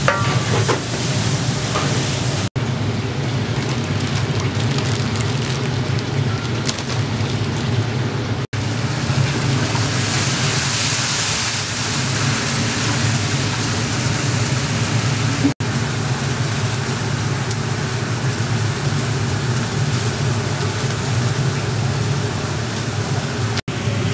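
Pilaf base of meat, onion and carrot frying in a large kazan: a steady sizzling hiss over a low rumble from the fire beneath. Partway through the hiss grows brighter as water is poured into the hot kazan, and the sound breaks off briefly several times at cuts.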